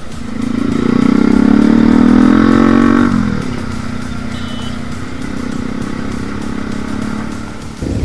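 Motorcycle engine pulling away under throttle, rising slightly in pitch and loudest for about the first three seconds. About three seconds in it eases off into a steady, lower running drone as the bike rides on.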